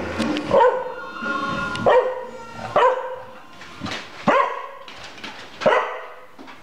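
Pembroke Welsh Corgi barking five times, about a second or so apart, over orchestral music.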